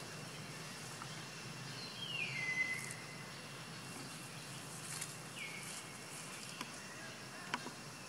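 Outdoor natural ambience with a steady low background noise. A whistle-like call slides down in pitch about two seconds in, and a shorter one follows at about five seconds. A couple of sharp clicks come near the end.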